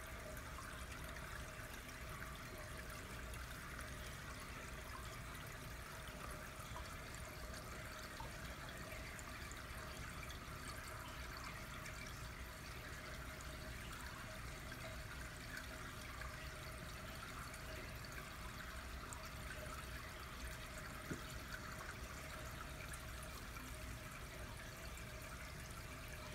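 Water running steadily through a two-current choice flume, an even trickling flow, with a faint steady hum underneath.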